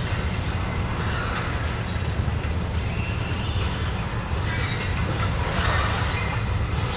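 Sloping moving walkway running: a steady low hum from its drive, with faint short squeaks and rattles now and then.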